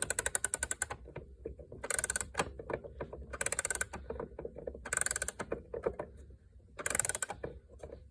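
Key winding the mainspring of an antique gingerbread mantel clock: the click ratchet rattles off quick runs of clicks with each turn, about every second and a half.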